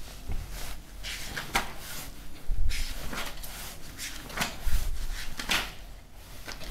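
Irregular clicks, knocks and rustles of objects being handled, with a few soft low thumps.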